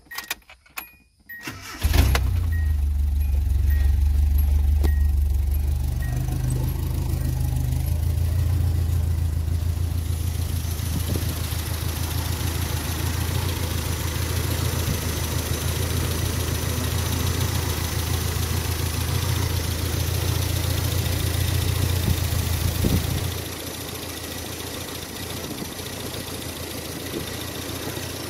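1986 Nissan D21 pickup's engine starting with a turn of the key and catching about two seconds in, freshly fitted with new ignition coils and a new ignition control module, then running steadily with a low hum. The hum becomes quieter near the end.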